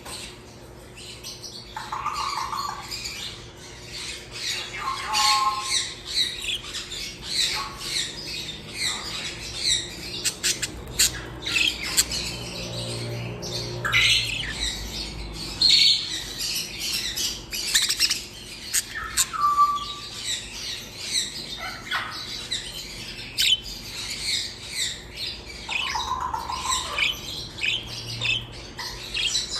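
A flock of small birds chirping and squawking almost without pause, many calls overlapping, with a few lower, longer squawks now and then.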